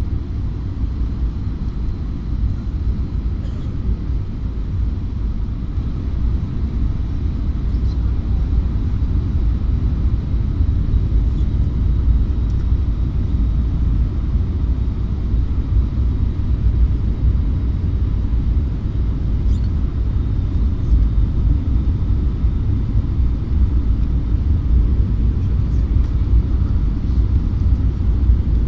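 Airbus A321 passenger cabin on descent: a steady low rumble of engine and airflow noise, growing slightly louder about a third of the way in.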